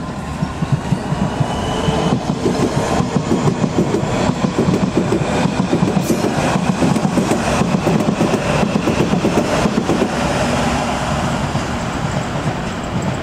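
London Underground S7 stock District line train pulling out, with a steady rumble and many clicks as its wheels pass over rail joints, and a faint whine above.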